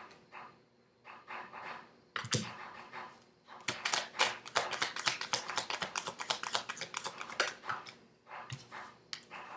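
A deck of tarot cards being shuffled by hand before the next card is drawn: a fast run of card flicks and clicks lasting about four seconds in the middle, with softer rustles of the cards before and after.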